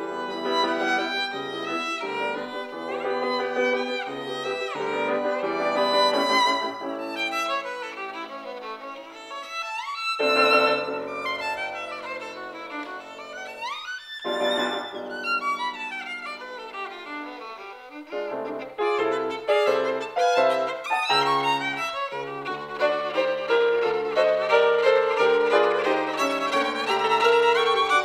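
Solo violin playing a classical piece with grand piano accompaniment. There is a long descending run of notes about halfway through.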